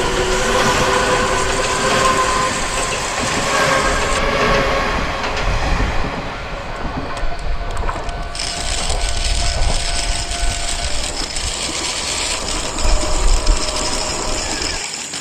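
Dubbed real-train sound effect: a train rolling along with continuous rail noise, held tones in the first four seconds, and a couple of abrupt changes where clips are joined.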